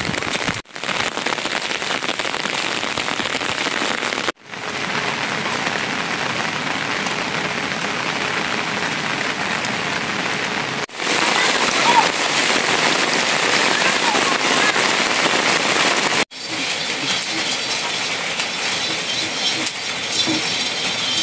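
Steady rain falling, an even hiss that breaks off abruptly for an instant several times.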